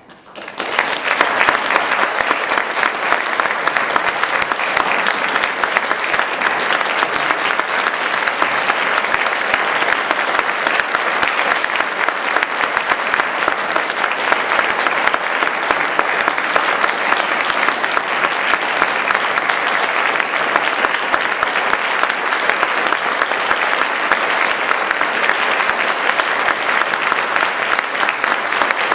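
Audience applauding steadily, starting suddenly and building to full strength within the first second.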